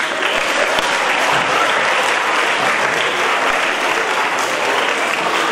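Audience of students and staff applauding, a dense, steady clapping.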